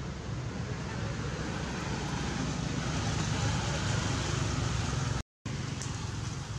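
Steady outdoor background noise: a low rumble with a hiss over it, like wind or distant traffic, with no distinct events. It cuts out for a moment near the end.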